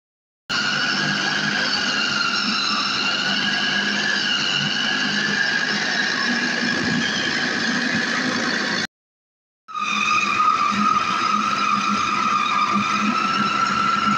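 Small Anex electric food processor's motor running while it grinds a raw beef and chicken mince kebab mixture with spices and herbs: a steady high whine, with a short break about nine seconds in.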